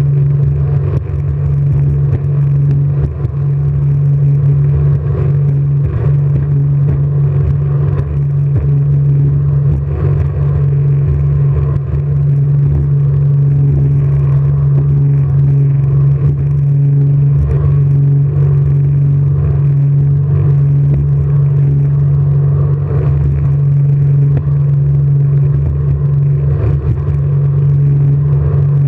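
Jet boat engine running at a steady speed, one loud, even drone with a low rumble under it and occasional short knocks.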